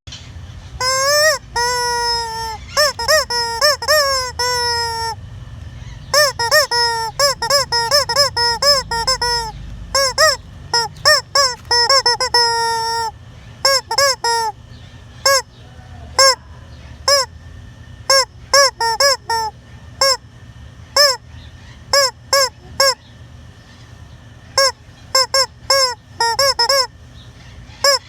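A hen calling loudly and repeatedly: bouts of short, rising-and-falling squawks, several a second, broken by brief pauses, with a few longer drawn-out calls near the start.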